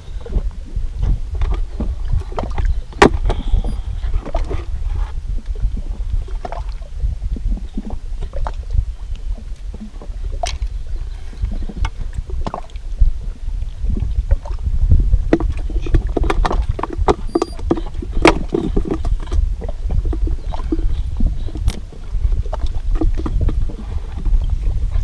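Wind buffeting the microphone as a steady low rumble, with scattered clicks and knocks from handling fishing gear and a plastic bait bucket on the rocks.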